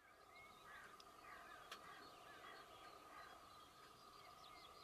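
Faint birdsong: many short chirps and trills from small birds, over a quiet, even background, with a single faint tick about a second and a half in.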